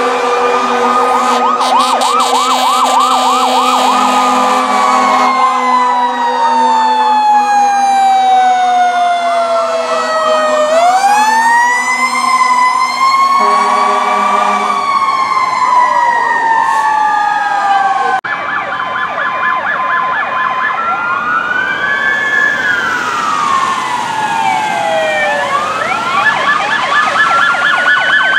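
Several fire truck and ambulance sirens sound at once, one wailing in long slow falls and rises while others yelp rapidly over it, with a steady low blaring tone underneath near the start and again about halfway. About two-thirds through, the mix changes to fast yelping and a high-low two-tone siren as police vehicles and ambulances go by.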